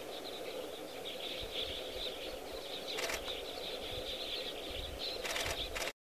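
Outdoor field ambience: a steady background chorus of small birds chirping, with a few brief knocks, about 3 seconds in and again near the end. The sound cuts off abruptly just before the end.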